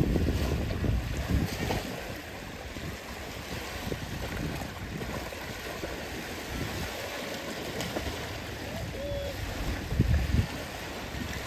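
Small waves washing in shallow water, with dogs and a person splashing as they wade through it. Wind rumbles on the microphone, strongest at the start and again about ten seconds in.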